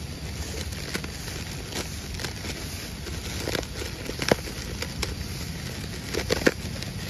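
Fish feeding at the pond surface, making irregular small splashes, pops and slurps, several in quick succession near the end, over a steady low rumble.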